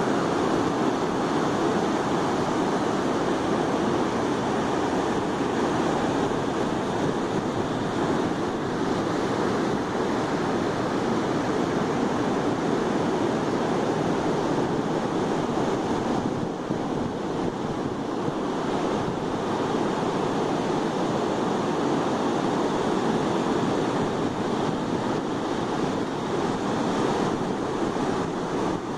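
Ocean surf breaking steadily on a beach, with wind on the microphone.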